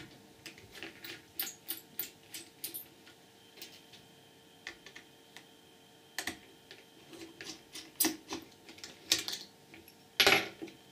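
Irregular light clicks and taps of a small precision screwdriver and loose parts against the plastic case and circuit board of a handheld PDA as its last few screws are taken out, with a louder clatter near the end.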